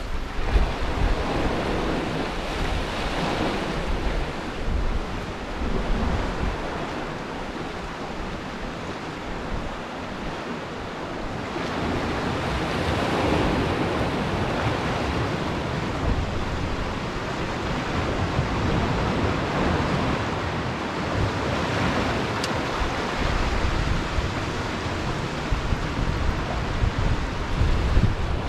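Sea swell washing and breaking against shore rocks, surging louder every several seconds, with wind buffeting the microphone.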